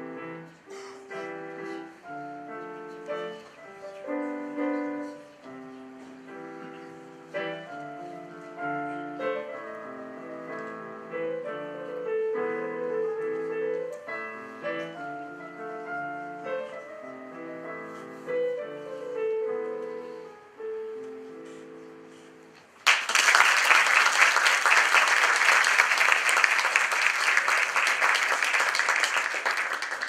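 A piano piece played on a digital piano, its last notes fading out about 23 seconds in, followed at once by loud audience applause.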